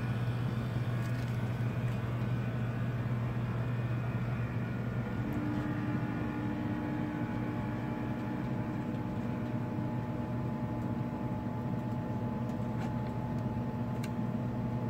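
Electric motor and gears of a Bachmann model train locomotive whirring steadily as it runs along the track, with a higher tone joining about five seconds in.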